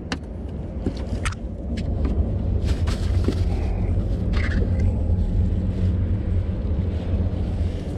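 Boat motor running with a steady low rumble, with scattered short clicks and knocks over it.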